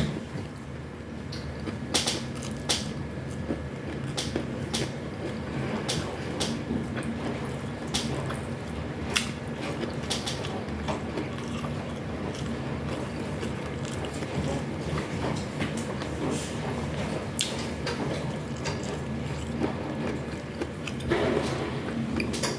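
Eating sounds: chewing, with scattered sharp clicks over a steady low hum.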